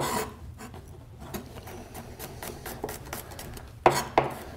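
Chef's knife slicing garlic cloves on a plastic cutting board: a run of light, quick knife strokes tapping through onto the board, with a sharper knock at the start and two louder ones near the end.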